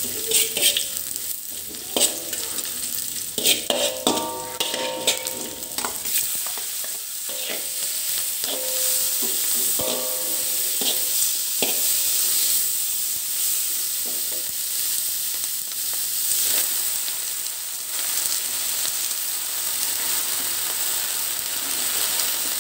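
Food sizzling in hot oil in a wide metal wok while a metal spatula scrapes and clacks against the pan, stirring chillies and tomato. The scraping and clacks are busiest in the first few seconds, then come only now and then over a steady sizzle.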